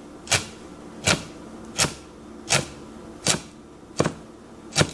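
A large kitchen knife doing honekiri on a pike conger (hamo) fillet: it cuts the fine bones and flesh down to just short of the skin, with a sharp tap on the wooden cutting board at each stroke. There are seven strokes at an even pace, about one every three-quarters of a second.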